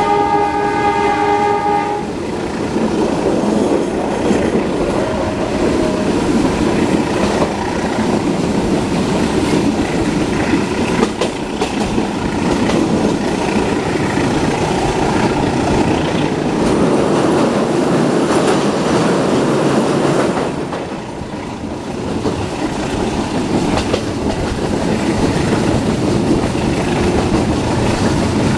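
A train horn sounds for about two seconds at the start, then the steady rumble and clickety-clack of a moving passenger train on the rails.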